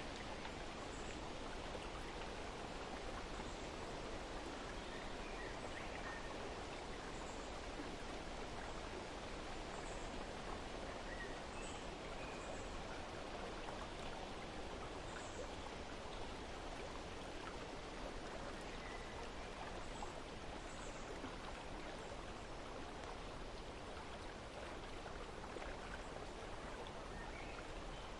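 Steady rush of flowing stream water, with faint, scattered bird chirps over it.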